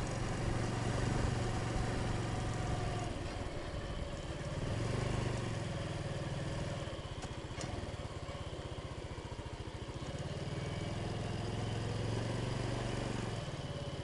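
Honda Cub's small four-stroke single-cylinder engine running steadily while riding, heard from the saddle with wind noise, its note swelling a little a couple of times.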